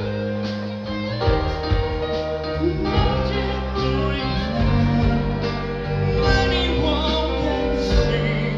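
Live rock band playing, with a male lead singer singing into a microphone over the band through the sound system.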